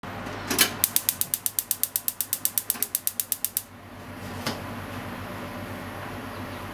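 Gas stove's electric igniter clicking rapidly as the burner is lit, about nine clicks a second for nearly three seconds before it stops. A single click follows about a second later.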